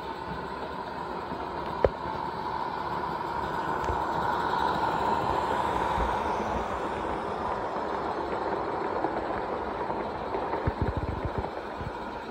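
Large-scale model of Bridgton & Saco River locomotive No. 7 running along its track with a train, a steady rolling and running-gear noise with a faint steady whine. It grows louder as the locomotive passes close about halfway through, then eases off. A single sharp click sounds just before two seconds in.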